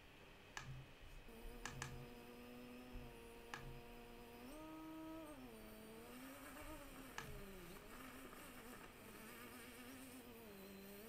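Faint buzz of the F450 quadcopter's motors and propellers, heard from its own GoPro footage played back on a computer. The pitch holds steady, then rises and falls a few times mid-way as the drone manoeuvres, and settles again. A few sharp mouse clicks are heard, the first near the start.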